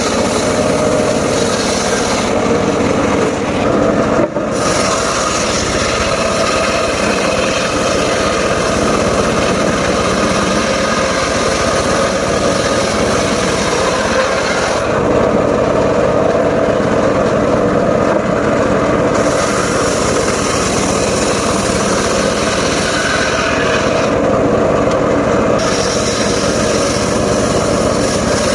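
Engine-driven circular saw running steadily while sawing mahogany and waru wood. The higher part of the noise fades for a couple of seconds three times, about two seconds in, around fifteen seconds in and near twenty-four seconds.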